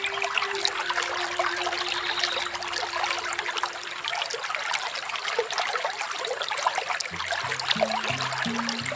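Small waterfall splashing and trickling steadily. Soft background music plays under it: a held low note that stops about four seconds in, then slow low notes stepping in near the end.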